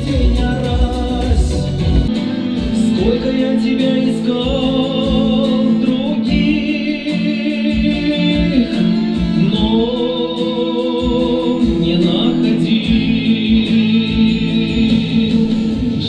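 A man singing into a microphone over instrumental accompaniment, holding long notes with vibrato.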